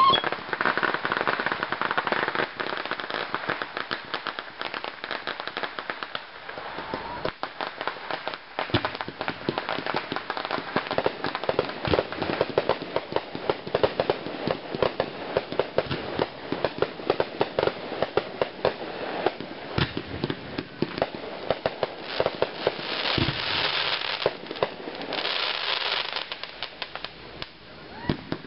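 Aerial fireworks bursting overhead: a dense, continuous rattle of small sharp pops from crackling stars, with a few louder bangs scattered through.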